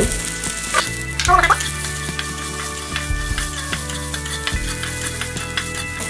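Garlic cloves, shallots and small red chilies sizzling as they fry in a metal wok, stirred with a metal spatula that scrapes and clicks against the pan.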